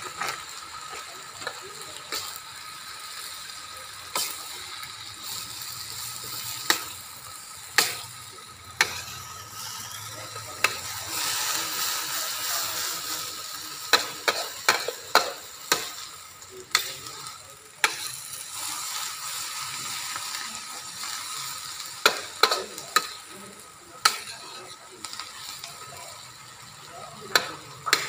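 Stir-frying in a wok: a steady sizzle of mushrooms and midin fern in hot oil, with a metal spatula repeatedly knocking and scraping against the wok. The sizzle swells for a few seconds around the middle.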